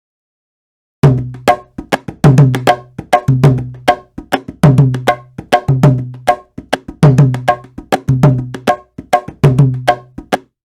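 Sampled Indian hand-drum loop from Native Instruments' Discovery Series India library: sharp strokes over a deep, pitched bass-drum tone, in a phrase that repeats about every 1.2 seconds. It starts about a second in and breaks off briefly near the end.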